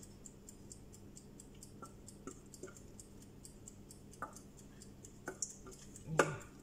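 Faint scrapes and taps of a spatula against a stainless steel pot as the last of the bechamel is scraped out, with one sharp clank of metal on metal near the end. Under it runs a fast, even, high ticking, about five ticks a second.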